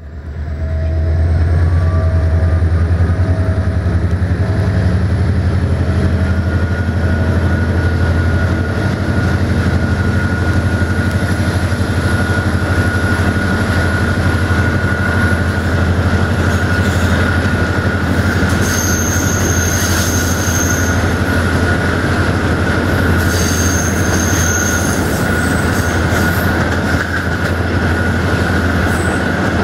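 Passenger coach wheels rolling on the rails, heard from an open window: a steady rumble of wheels and track, with a high, steady wheel squeal that settles in within the first few seconds and two short, sharper squeals about two-thirds of the way through.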